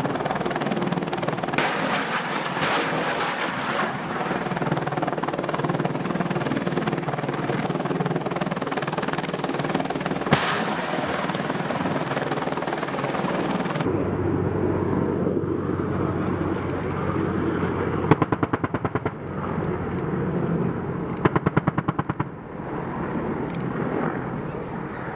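AH-64 Apache helicopter's rotors and turbines running steadily overhead. In the second half, the Apache's 30 mm M230 chain gun fires two bursts of rapid shots, about ten a second, over the rotor noise.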